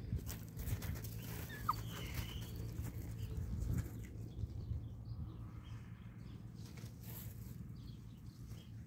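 German shepherd puppies play-fighting on gravel: scuffling, with paws crunching and shifting on the loose stones.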